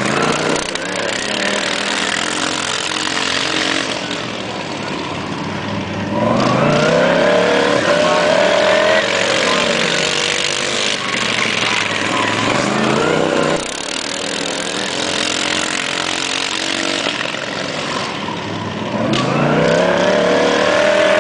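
Modified racing lawn mower engines revving hard, their pitch swinging up and down as the throttle is worked and the mowers pass. The sound grows louder from about six seconds in to about thirteen, and again near the end.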